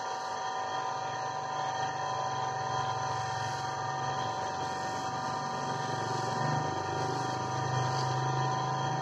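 Electric bench motor spinning a small lapidary wheel with a steady hum, while a gemstone held on a stick is pressed against the wheel to shape it.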